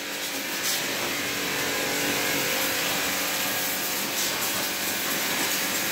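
Small pressure washer, model 280, running steadily: its motor hums under the hiss of the high-pressure water jet spraying onto a motorcycle.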